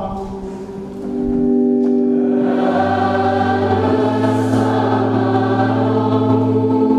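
Church choir singing a long held liturgical response with a low instrumental accompaniment; the voices hold steady notes and the bass note shifts about four seconds in.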